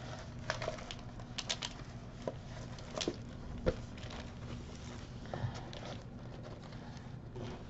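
Scattered light taps, clicks and rustles of a rolled diamond-painting canvas and its clear plastic cover being handled and unrolled, over a faint steady hum.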